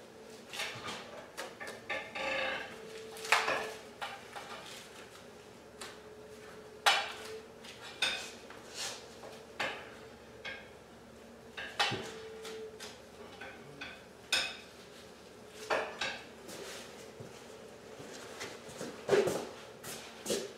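Hand-skinning a hanging deer: irregular clinks, knocks and short scrapes as the knife works and the hide is pulled down the carcass, with the hanging frame clinking now and then.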